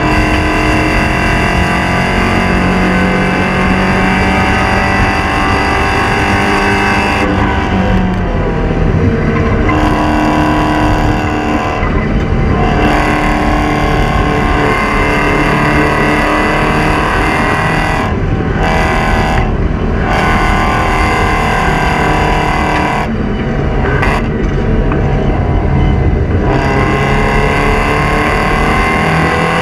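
Porsche 944 Spec race car's four-cylinder engine running hard at racing speed, its pitch climbing as it pulls through the gears, broken several times by short lifts off the throttle for shifts and braking.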